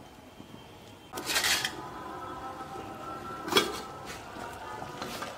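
Stainless-steel dishes clattering: a loud metal clatter about a second in and a sharper clink a couple of seconds later, each leaving a ringing tone, as a steel plate used as a lid is lifted off a clay cooking pot.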